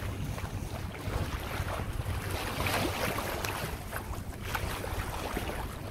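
Water rushing and splashing along the hull of a sailboat under way, with wind buffeting the microphone.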